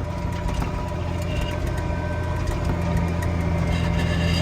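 Farm tractor's diesel engine running steadily while it pulls a loaded grain cart over a rough farm road, growing slightly louder near the end.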